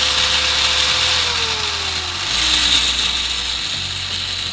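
Electric angle grinder running at speed on its newly fitted replacement switch, a dense high-pitched motor and gear whine. About a second in, its pitch starts to fall, a sign that the motor is slowing down.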